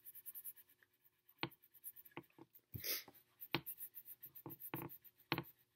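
A wax crayon scratching faintly on paper in short, irregular strokes as a shape is coloured in, with one longer, louder stroke about three seconds in.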